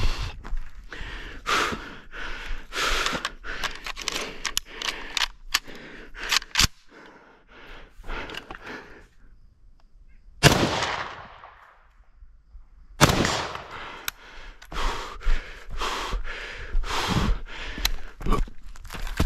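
Shots from an M1 Garand rifle chambered in .308, fired semi-automatically, mixed with the shooter's heavy breathing and movement. The loudest shot, a little past the middle, is followed by a long ringing echo.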